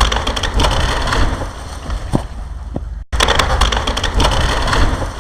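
Gunfire and sharp impacts over a steady low rumble, with a sudden brief dropout about three seconds in.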